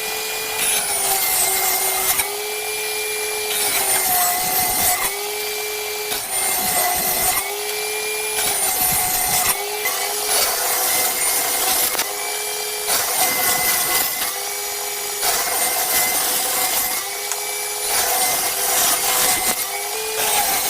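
Table saw running and making a series of cuts through 12 mm plywood, one every couple of seconds. The motor note sags as the blade is loaded in each pass and recovers between passes.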